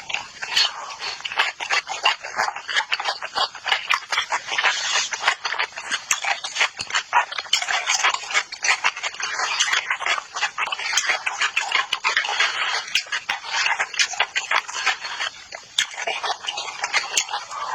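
Close-miked chewing of spicy chicken: a dense, continuous run of quick clicks and mouth noises.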